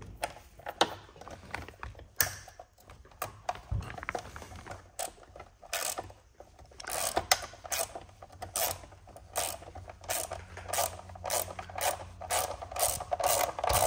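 Hand ratchet clicking as it turns a socket, driving a skid plate mounting bolt into its threads. The clicks are scattered at first, then settle into a regular run of about two or three a second for the second half.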